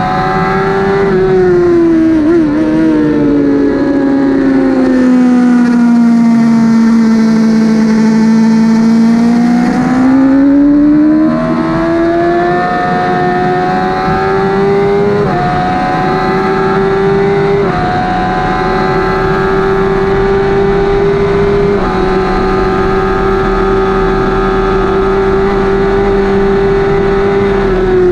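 2008 Suzuki GSX-R1000 inline-four engine heard from on board the bike at track speed. The revs sag steadily for several seconds, then climb hard, with short dips near 15 s and 18 s that fit upshifts, and the engine holds high revs near the end.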